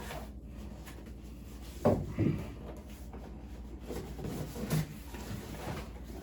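A cardboard snack box being opened and handled: two sharp knocks a little under two seconds in, then smaller bumps and handling noises.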